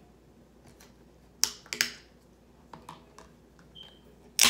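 Sharp clicks of a metal fork and fingernails working at the pull tab of a soda can: a couple of clicks about one and a half seconds in, a few lighter ones, and a louder click near the end.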